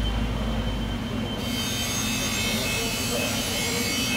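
Steady machinery noise: a low hum that drops away about a second in, then a high hiss with a thin steady whine. Faint voices come in near the end.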